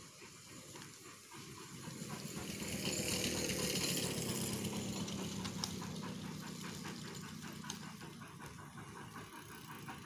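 A vehicle passing: a rushing engine sound that swells to its loudest about three to four seconds in and then slowly fades away.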